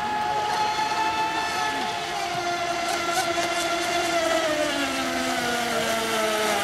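Radio-controlled model speedboat running flat out across the water, a steady motor note whose pitch slowly falls as the boat moves away.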